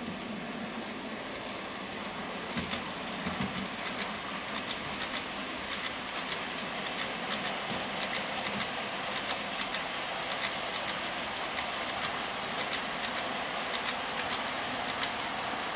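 Model train with silver bullet china clay wagons running on layout track: a steady running noise with many light clicks as the wheels pass over the rail joints.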